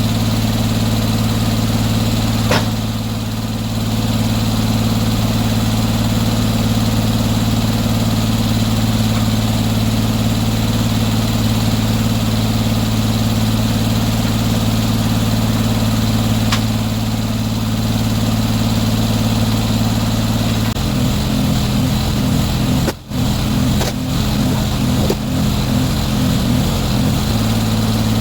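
Sawmill's engine running steadily at idle. For several seconds near the end its low note takes on a rapid pulsing.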